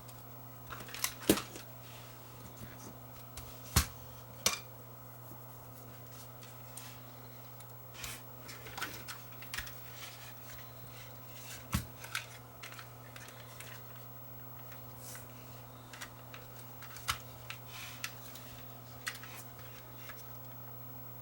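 Small camcorder parts being handled and fitted during reassembly: scattered sharp clicks and taps, the loudest about one, four and twelve seconds in, over a steady low hum.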